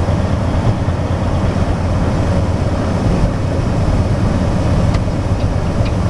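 Semi truck's diesel engine and tyre noise inside the cab while driving on a snow-covered road: a steady low drone.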